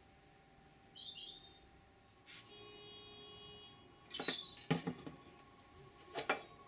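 Portable halogen floodlight and its yellow tubular metal stand handled on a wooden table: a few sharp knocks and clatters in quick pairs, a little past the middle and again near the end.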